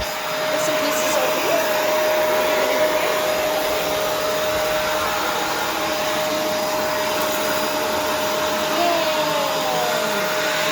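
Vacuum cleaner running steadily, a dense rushing noise with a steady high whine through it.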